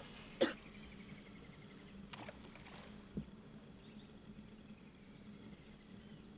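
A fishing rod cast from a boat: a sharp swish about half a second in, then a faint rapid ticking from the reel and a soft knock about three seconds in, over a faint steady background.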